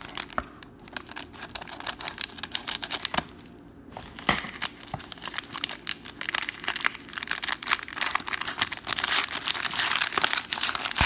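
Foil wrapper of a football trading-card pack crinkling and tearing as it is opened by hand. Sparse crackles at first, turning busier and louder about four seconds in.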